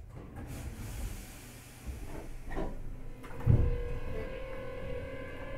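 Toyo GTO VVVF inverter of a Hankyu 8300 series electric train starting up as the train pulls away: several tones set in about three seconds in and slowly rise in pitch. Just before they begin there is a heavy low thump, the loudest sound here, and there are lighter knocks and a short hiss earlier on.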